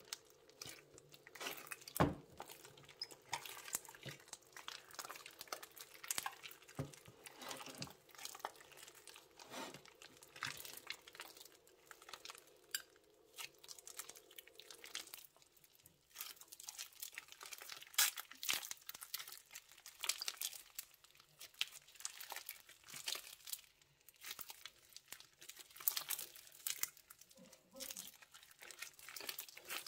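Plastic bags crinkling and crackling as they are handled and squeezed, in many small irregular crackles, over a faint steady hum that stops about halfway through.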